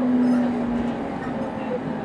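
Inside a JR East Series 701 electric train running: rail and running noise with a steady hum from the GTO-VVVF traction equipment that cuts off just under a second in.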